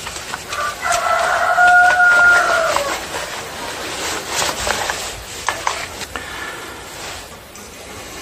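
A rooster crowing once, a held call of about two seconds that starts about a second in and falls away at its end. Under it and after it comes the repeated scratching of a stiff brush scrubbing sawdust off a chainsaw's clutch housing.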